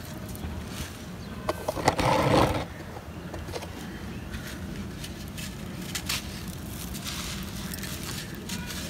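Hands rubbing and scraping a dry sand-cement block, a gritty scratching with scattered small clicks. About two seconds in comes a louder, brief rush of noise.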